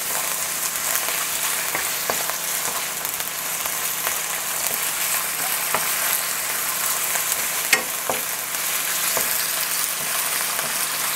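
Chicken pieces sizzling in hot oil in a nonstick wok while a wooden spatula stirs them, knocking and scraping against the pan a few times.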